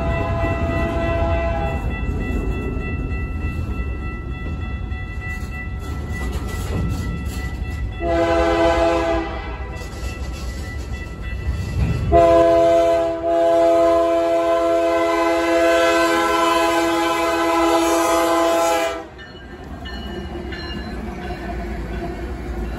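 Freight locomotive horn with several chime tones: one blast ends about two seconds in, a short blast comes about eight seconds in, and a long blast runs from about twelve to nineteen seconds, sounded by an approaching CPKC freight at a grade crossing. Beneath it in the first half is the rumble of a passing freight train's cars.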